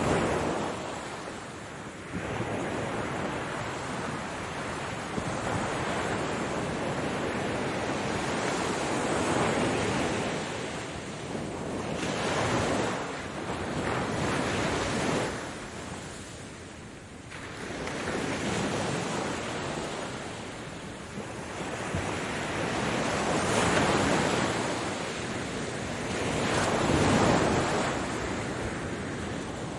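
Ocean surf: waves breaking and washing in, the rushing noise swelling and falling back every few seconds.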